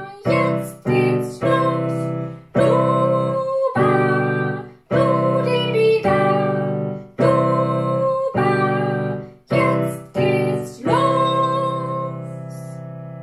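A woman singing a song over piano chords struck about once a second, ending on a long held chord that fades out near the end.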